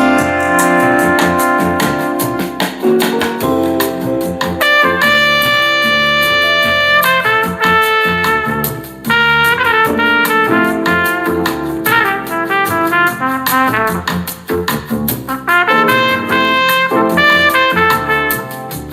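Jazz with a lead trumpet playing held, shifting notes over a bass line, played through an Anker Soundcore portable Bluetooth speaker as a sound test.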